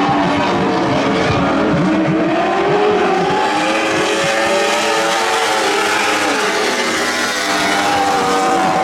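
Several lightning sprint cars racing together, their high-revving motorcycle engines overlapping, each pitch rising and falling as the cars lift and accelerate.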